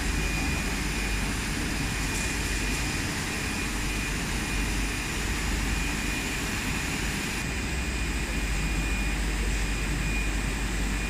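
Plastic foam-profile extrusion line running: a steady machinery drone with a low rumble and a faint high whine that drops out and comes back.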